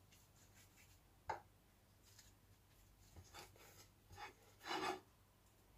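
Faint, soft rubbing and scraping of hands greased with ghee and oil, then working a piece of rice-flour dough on a steel plate; a few brief strokes, the longest near the end.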